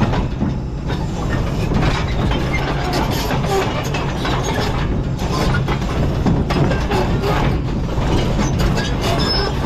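Excavator engine running with a steady drone while its steel bucket scrapes and pushes loose rocks, stones knocking and grinding against the bucket and each other in quick, irregular clatters.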